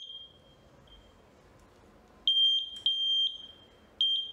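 Repaired handheld VLF metal detector's buzzer beeping in a single high tone: a beep at switch-on, then three loud beeps in quick succession about two seconds in and two more near the end, its alarm for metal detected near the search coil.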